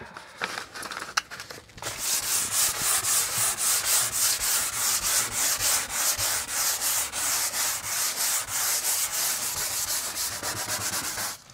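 Sandpaper rubbed by hand back and forth over a varnished wood-veneer bulkhead, about three strokes a second, lightly sanding off old varnish. The first couple of seconds hold only scattered, quieter rubs before the steady strokes begin.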